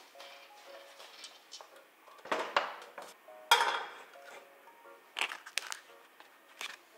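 Kitchen handling sounds over soft background music: a double clatter a little past two seconds, then a sharp, loud knock with a brief ring about a second later, from a pot on a portable gas stove. Near the end come a few light clicks and crinkles as the foil-lined wrapper is peeled back from a block of butter.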